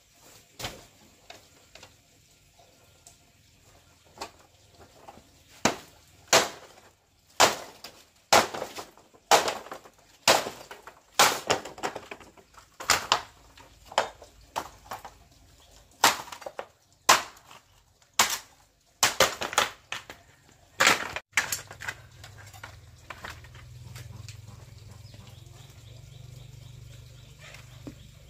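A run of about twenty sharp strikes, roughly one a second, stopping a little after twenty seconds in. A low steady hum follows.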